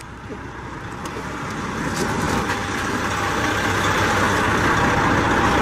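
Semi truck engine running steadily, growing louder.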